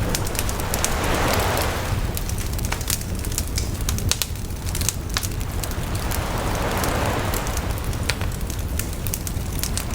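Campfire crackling with frequent sharp pops, over ocean waves that swell and wash in twice, about six seconds apart, with a steady low rumble of surf beneath.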